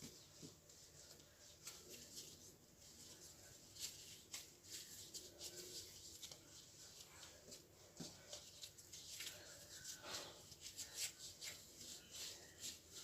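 Faint, scattered clicks and soft knocks of a rolling pin on a board as pastry dough is rolled out into a circle.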